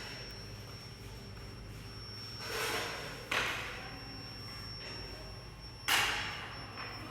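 Induction melting furnace running with a steady low hum and a thin high whine. Two sharp knocks, each ringing briefly, come about three and six seconds in, with a softer clatter just before the first.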